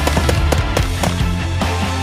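Loud hard rock music with a fast, steady drum beat and a sustained bass line.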